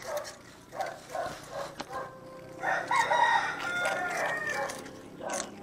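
Cats crunching prawn crackers in short repeated bites, and a rooster crowing once, about two seconds long, starting about halfway through.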